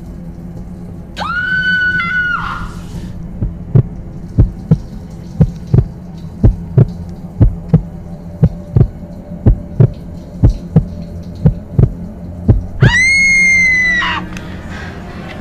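Horror sound design: a woman's scream held about a second, then a heartbeat sound effect, a double thud about once a second over a low drone, ending in a second, louder and higher-pitched scream.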